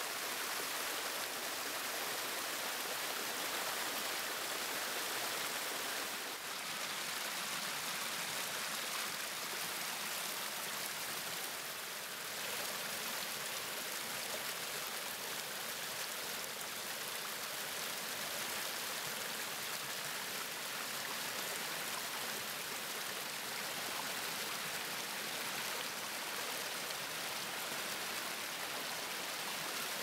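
Small woodland stream running over mossy rocks and little cascades: a steady rush and splash of water.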